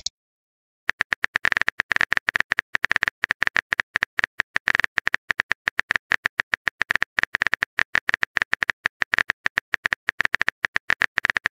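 Phone keyboard typing clicks: a rapid, uneven run of short key taps as a text message is typed out, starting about a second in.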